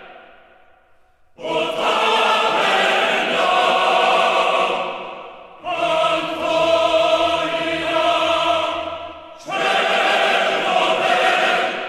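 Choral music: a choir sings three long chords, each starting suddenly about four seconds apart and fading away, with a low held note under the middle one.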